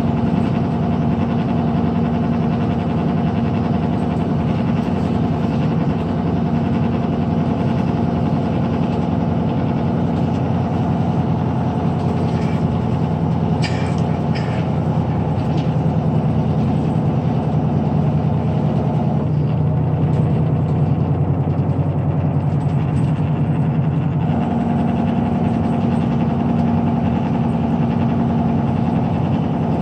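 Interior sound of a Grandbird Sunshine coach's 425 PS inline-six VGT turbodiesel (Powertec, Euro 4) cruising on the highway: a steady engine drone under tyre and road noise. For about five seconds past the middle the engine note shifts, then settles back, and a few light rattles sound a little before that.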